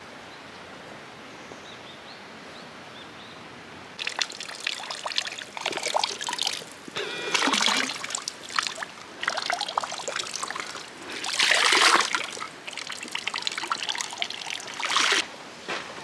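Water trickling and splashing. It is a faint steady hiss at first, then from about four seconds in it comes in irregular louder gushes and splashes.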